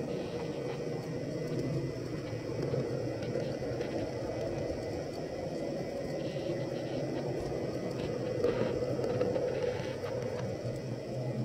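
Model train running steadily along the track, heard from a camera riding on it: a continuous whirring rumble from its motor and wheels on the rails.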